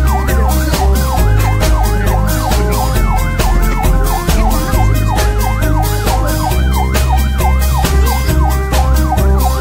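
Emergency vehicle siren in a fast yelp, sweeping up and down about three times a second. Loud music with a steady drumbeat and heavy bass plays over it.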